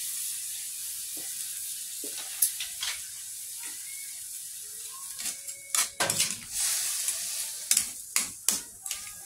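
Shrimp frying in a pan of margarine and Sprite, with a steady sizzle that slowly fades. A metal spatula scrapes and knocks against the pan as it stirs, and the knocks come faster and louder in the last few seconds.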